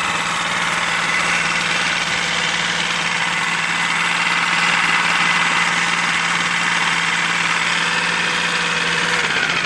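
Lehr 5 hp propane-fuelled single-cylinder four-stroke outboard running steadily. It sounds quiet and smooth even though water is getting into its crankcase oil, which the mechanic puts down to a bad head gasket.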